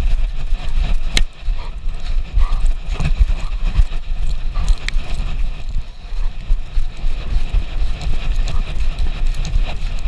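Dog's paws thudding on snow in a fast, irregular run while a GoPro carried close to the dog jostles, with low wind buffeting on the microphone and scattered short clicks.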